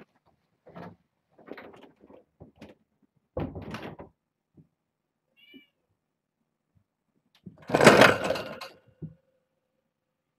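Kittens moving about a room: scattered light knocks and scuffles, and a faint high kitten mew around the middle. About eight seconds in comes a single loud bang, short, with a brief ringing tail.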